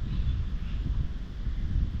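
Wind buffeting the microphone outdoors, giving a rough, uneven low rumble.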